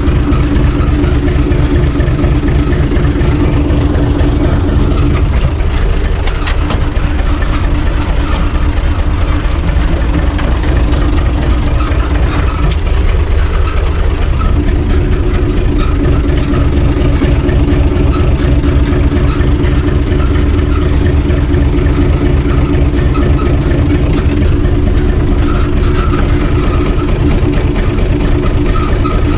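UTB U445 DT tractor's diesel engine idling steadily, heard from inside its cab. Its steady hum thins out from about five seconds in and comes back fully at about fourteen seconds.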